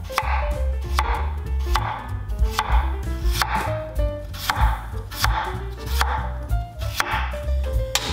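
Chef's knife slicing a raw potato into thin rounds on a wooden cutting board. Each stroke is a crisp cut ending in a knock on the board, about one slice a second.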